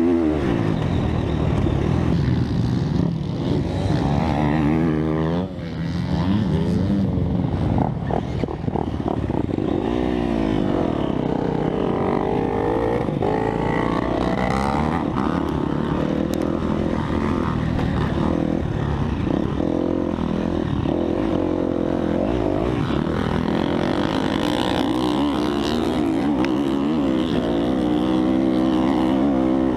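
Motocross dirt bike engine revving hard, rising and falling in pitch as the rider opens and rolls off the throttle and shifts gears around the track. The sound drops briefly about five seconds in and again around eight seconds in.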